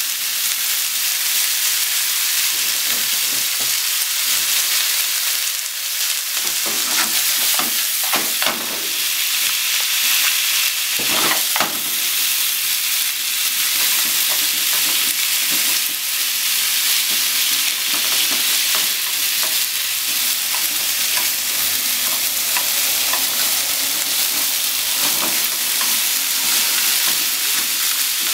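Sliced onion and meat sizzling in a hot nonstick frying pan as they are stir-fried with wooden chopsticks. A steady frying hiss, with the chopsticks scraping and clacking against the pan now and then, most of all between about six and twelve seconds in.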